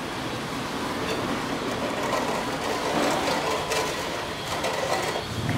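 Water boiling in a stainless steel pot on a portable gas stove, with a metal ladle stirring through it and knocking against the pot now and then in the middle.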